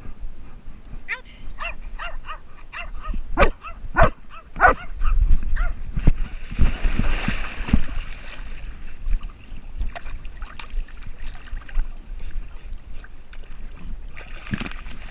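A black dog, close to the microphone, whining and yipping in a run of short high calls for several seconds, followed by a brief burst of noise.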